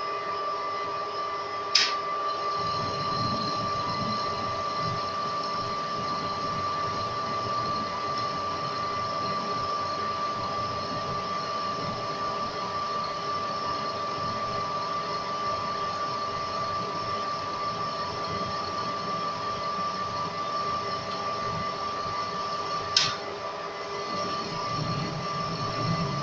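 Metal lathe running with a steady whine while its carbide tool cuts a small mild-steel part held in the chuck. A sharp click about two seconds in and another near the end, after which the sound is a little quieter.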